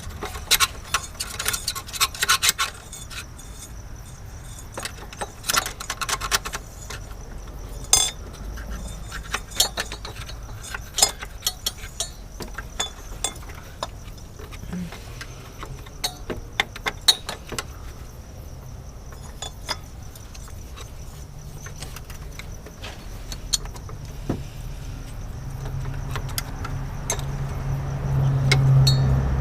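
Irregular metallic clinks, rattles and scraping as grimy engine parts are handled and cleaned by hand. A low rumble swells near the end.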